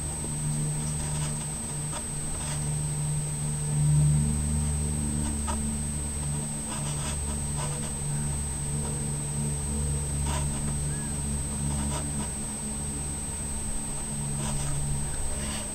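Steady low mechanical hum with a constant high-pitched whine above it, and a few faint clicks scattered through.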